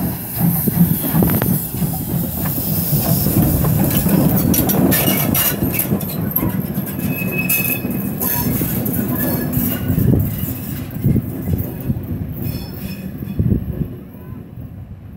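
DR class 50 steam locomotive 50 3501, a 2-10-0, rolling slowly past with steam hissing from its cylinders at the start, a low running rumble, rod and wheel clanks, and a brief wheel squeal in the middle. It grows quieter near the end as it moves away.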